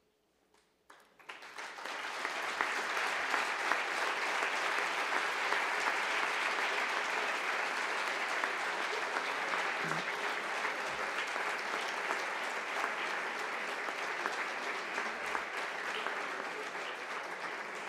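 Audience applauding: the clapping builds up about a second in, holds steady, and tapers off near the end.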